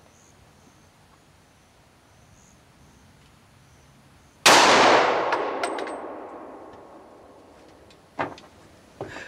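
A single .357 SIG pistol shot from a Glock 32, a sharp report about four and a half seconds in that echoes away over about three seconds. A few light clinks follow, and a short knock comes near the end.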